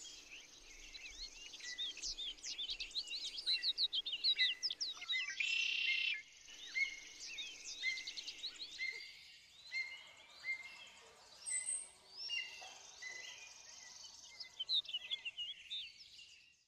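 Small songbirds chirping in quick, busy runs of short high chirps, loudest about four to six seconds in, with a harsh buzzy note about five seconds in.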